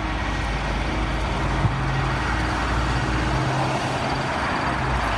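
Steady motor-vehicle noise: a low engine hum under an even rushing sound.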